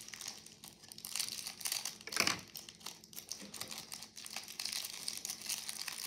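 Clear plastic wrapper crinkling and rustling as it is handled in the fingers, with a sharper crackle about two seconds in.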